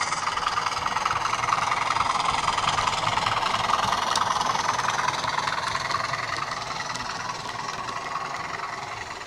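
A model Class 20 diesel locomotive's DCC sound decoder playing a Class 20 engine sound through its small onboard speaker as the loco runs past. The sound grows louder over the first few seconds, then fades as the loco moves away.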